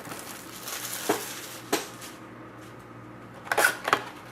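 A sealed box of hockey trading cards being opened by hand: packaging rustling and tearing for about two seconds, with a few sharp clicks and knocks as the box is handled.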